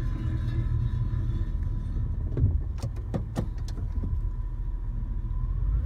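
Vehicle running with a steady low rumble, heard through the glass of a vehicle's cabin, with a thin steady whine over it. A quick run of five or six sharp clicks comes a little before halfway.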